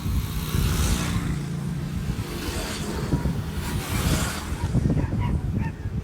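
Urban traffic: the low hum of motor vehicle engines, with the hiss of vehicles passing swelling about one second and about four seconds in.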